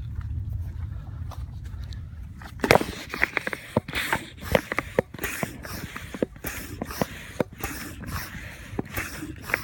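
Irregular sharp clicks and knocks, the water rocket launcher being handled and set up, starting about two and a half seconds in over a low rumble.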